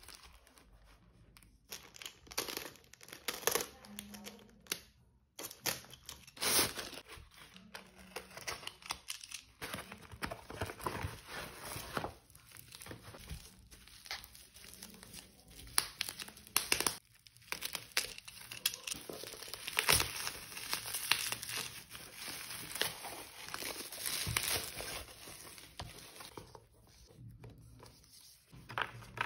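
Plastic courier mailer and bubble-wrap packaging being crinkled and torn open by hand, in irregular crackling bursts with short pauses.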